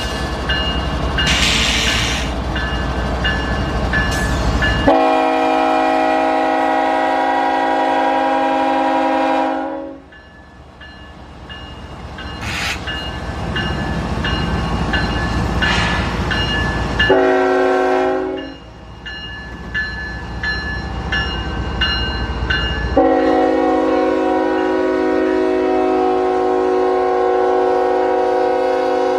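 A passing train rumbles and clatters while its locomotive's multi-chime air horn sounds a long blast, a short blast, then a long blast that holds to the end.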